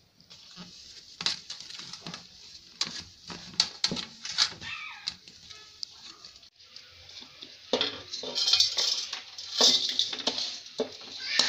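Metal utensils clinking, knocking and scraping against a cooking pot in an irregular run, busier and louder in the second half.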